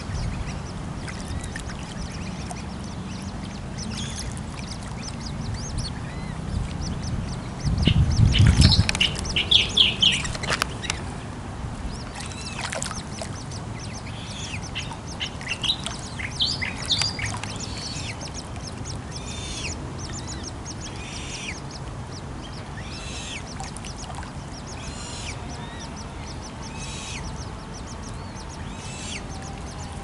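Waterbirds calling on a pond: short, high calls that repeat every second or two through the second half. About eight seconds in there is a louder burst of calls over a low rumble.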